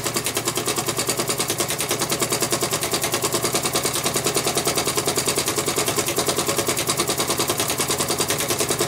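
Mamod MEC1 toy steam engine, modified with a second oscillating cylinder, running steadily: a rapid, even chuffing of about six exhaust beats a second.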